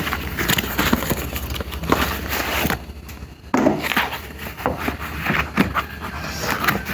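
Handling noise: irregular clicks, knocks and rustling as objects are picked up and moved about, with a short lull about three seconds in.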